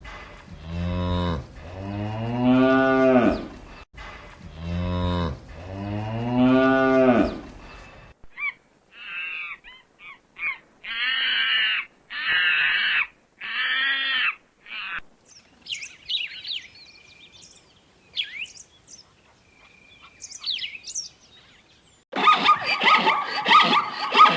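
A cow mooing twice in long, low calls that rise and fall. A run of about seven short, harsh bird calls follows, then thinner bird chirps, and a louder, dense noisy sound starts near the end.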